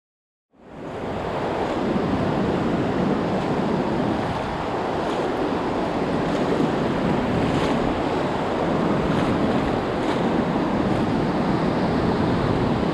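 Gulf of Mexico surf washing steadily around a wader standing chest deep, with wind on the microphone. It starts suddenly about half a second in, after silence.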